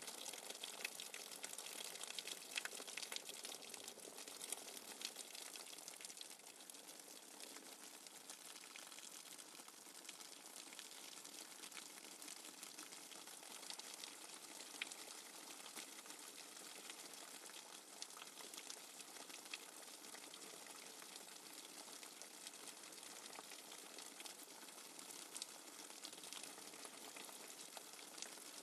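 Rainwater dripping fast and hard, a dense steady patter of many small drops, a little louder in the first few seconds.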